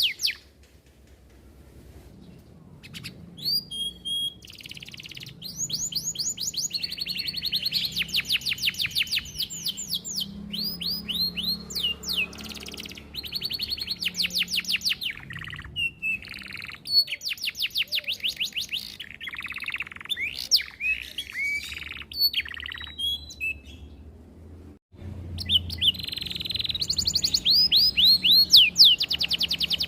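Domestic canary singing a long, varied song: fast trills and rolls of rapidly repeated rising notes, with short pauses between phrases.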